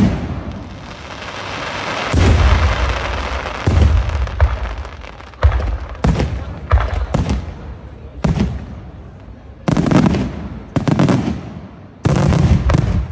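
Aerial firework shells bursting overhead: a rapid series of about a dozen loud booms, some in quick pairs, with a hissing crackle building in between.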